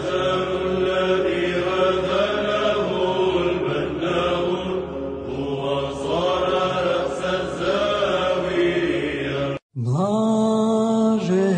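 Orthodox church chant: voices singing a slow melody over a held drone note. The chant cuts off abruptly about ten seconds in, and a new chanted piece starts straight after with a rising opening note.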